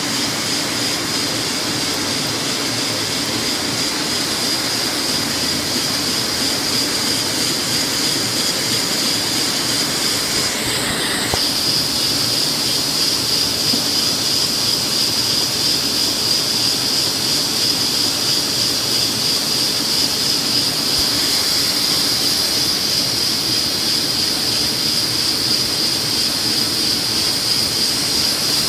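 MAN Roland 304 sheetfed offset printing press running: a steady mechanical hum with a constant high whine, a little louder from about eleven seconds in.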